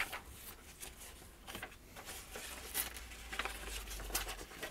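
Pages of a paper service manual being turned and handled: a series of short, faint paper rustles.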